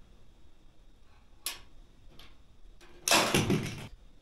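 Handling noise from camping gear: a sharp click about a second and a half in, a fainter click, then just under a second of loud crackling rustle near the end.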